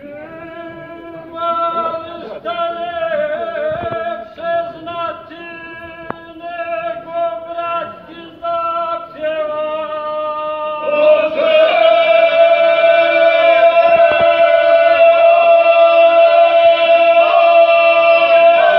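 Traditional Serbian folk (izvorna) singing: a lead voice sings short phrases over a steady held lower note. About eleven seconds in the singing grows louder and fuller, as more voices join in on long held notes.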